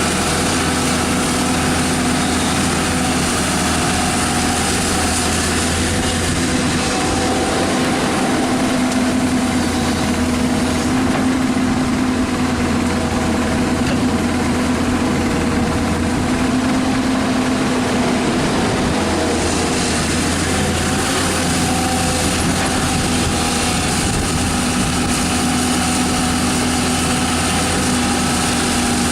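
Diesel engine of a Hyundai 220LC-9S crawler excavator running steadily, with a constant drone.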